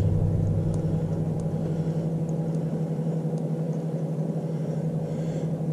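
Microwave oven running off an inverter from lithium batteries: a steady low electrical hum while it heats a bowl of water, drawing about 1,300–1,400 watts.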